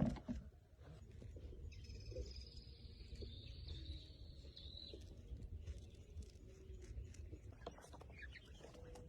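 Faint bird calls, including a thin high note held for about three seconds, over a low steady rumble.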